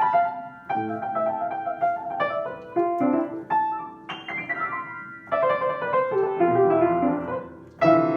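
Piano playing an instrumental passage of chords and runs of notes, each struck note ringing and fading, with a strong new chord near the end.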